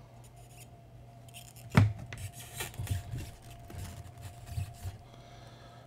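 Acrylic standee being fitted into its acrylic base: a sharp plastic click about two seconds in, then several smaller clicks and scrapes of acrylic pieces rubbing together, over a low steady hum.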